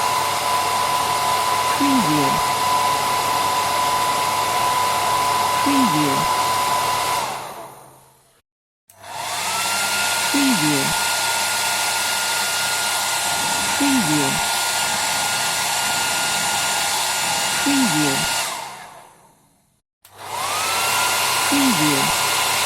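Electric hairdryer blowing with a steady whine. It is switched off about seven seconds in and winds down to silence, then switched back on with the whine rising as the motor spins up. It is cut off again around eighteen seconds in and restarts shortly before the end.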